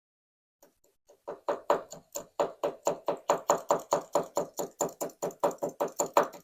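Rapid, even tapping of lock parts against a hard surface, about five taps a second, starting about a second in: trying to shake springs loose from a disassembled Sargent LFIC core.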